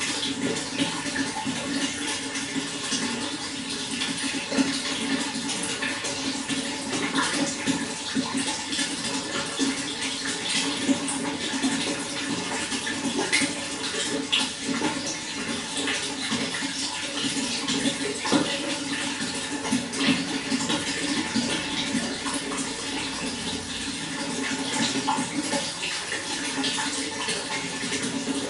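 Running water flowing steadily, with frequent small splashes.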